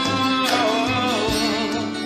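A song with an instrumental backing of steady held notes; about half a second in, a singing voice comes in with a wavering melody.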